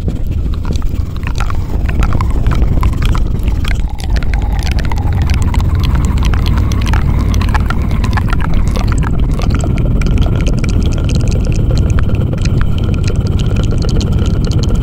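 Close-miked ASMR trigger sounds worked right on the microphone: a dense, loud low rumble with fast crackling clicks throughout. From about ten seconds in, a faint steady high tone sits above it.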